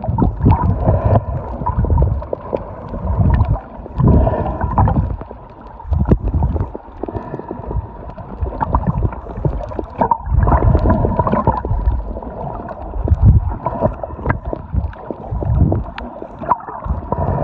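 Muffled underwater sound of water churning against a phone held below the surface while snorkeling, rising and falling in irregular surges every second or two, with a thin steady tone underneath.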